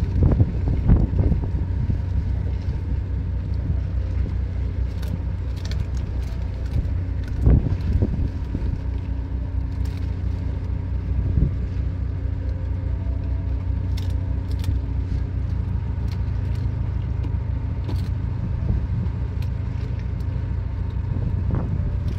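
Steady low drone of an idling ship's engine, with a faint steady whine above it. Scattered light clicks and rustles sound over the drone, with a couple of louder bumps about a second in and near 7.5 seconds.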